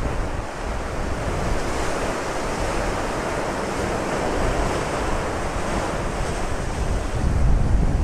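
Rough ocean surf breaking and churning over volcanic shore rocks, a continuous wash of foaming water that swells into a deeper, louder rumble near the end.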